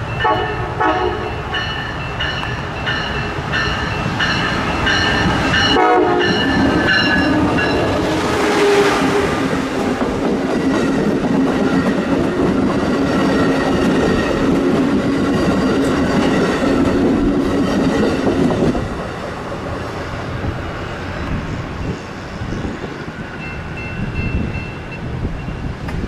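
A train passing on the line, with rail noise throughout. In the first six seconds there are repeated ringing tones about twice a second, and a steady low drone follows that drops away about 19 seconds in.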